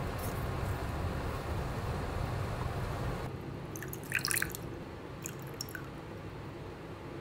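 Pot of water at a rolling boil with tangyuan in it, a steady hiss and rumble that stops suddenly about three seconds in. About a second later water is poured into a small glass bowl, a brief trickle and splash, followed by a few faint drips.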